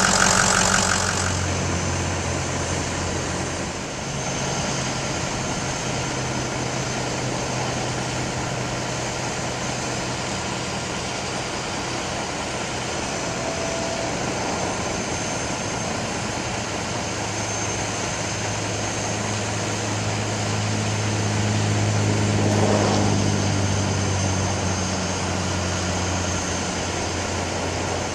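Diesel engine of a Ford Super Duty bucket truck running steadily, powering the hydraulics of its ETI aerial boom as the boom moves. It swells briefly about three-quarters of the way through.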